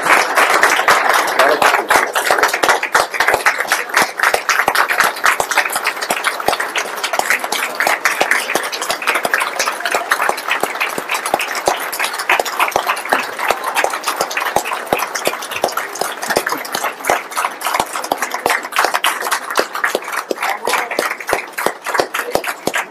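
Audience applauding: a long round of dense clapping from many hands, loudest at the start and easing a little toward the end.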